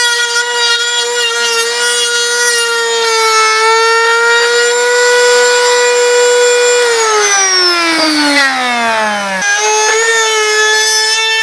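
Ryobi cordless trim router running at a steady high whine as it rounds over the edge of a wooden board. About seven seconds in its pitch slides down as the motor winds down, then it is suddenly back at full speed a couple of seconds later.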